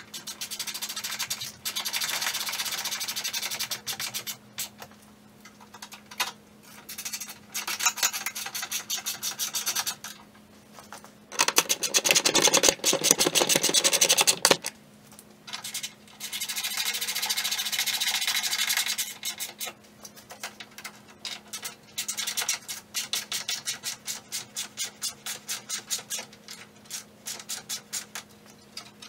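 Rapid ratcheting clicks in bursts of a few seconds, some fast enough to blur into a rasp, with a louder, coarser stretch about halfway through and more widely spaced clicks near the end, from hand fastening work on a car's front end.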